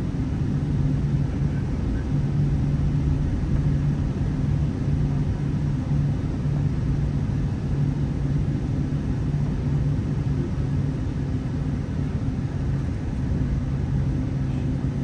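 Steady low hum and rumble inside the upper-deck cabin of a Boeing 747-8 as it taxis, with its GEnx engines running at low taxi power.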